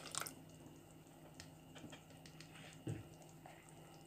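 Faint, scattered light taps and soft scrapes of a spatula stirring tomato sauce into beef mince in a pot, with a soft thump about three seconds in.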